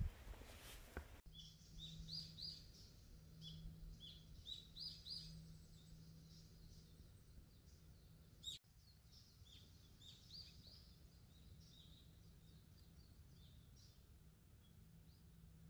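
Footsteps on dry forest leaf litter for about the first second, then small birds chirping: short, high calls coming in quick runs, with a faint steady low hum beneath and a single click a little past halfway.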